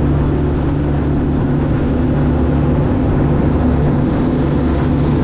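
Suzuki 350 four-stroke V6 outboard motors running steadily at cruising speed, with the rush of water from the boat's wake.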